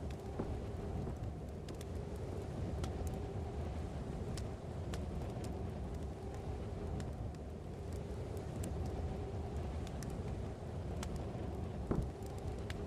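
A steady low rumble of background noise with a faint hum, and a few scattered faint clicks.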